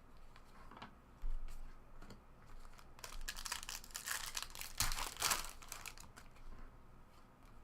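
Trading-card pack wrapper crinkling and tearing as a pack is opened and the cards are handled, with scattered small clicks. The loudest crinkling comes in the middle.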